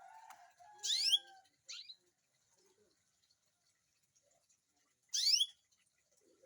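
Pet canary giving two short rising chirps, about a second in and again about four seconds later.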